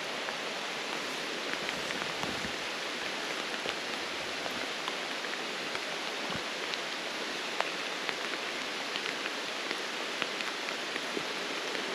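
Steady rain falling, a constant hiss with scattered faint drop ticks throughout.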